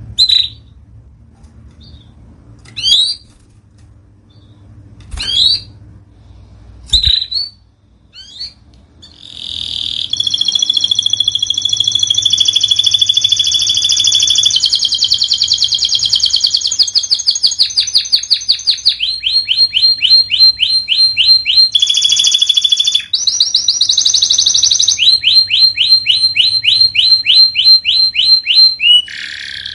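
Domestic canary: a few single rising call notes about two seconds apart, then from about nine seconds in a loud, continuous song of rolling trills and fast repeated notes.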